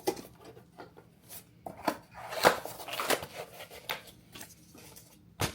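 Packaging and small parts being handled during an unboxing: scattered knocks, clicks and rustles, the loudest knock about two and a half seconds in and a sharp click near the end.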